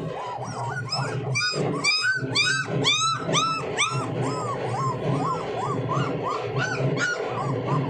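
Pak Bully puppies whining and yelping in a quick run of short, high, arching cries, about two or three a second. Several voices overlap in the first half, then the cries thin out to one at a time.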